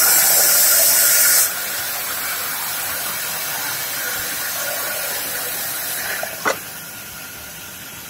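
Vertical band sawmill's blade cutting lengthwise through a timber plank: a steady rushing hiss, loudest and sharpest for the first second and a half. A short knock comes about six and a half seconds in, and the sound is quieter after it as the cut runs out.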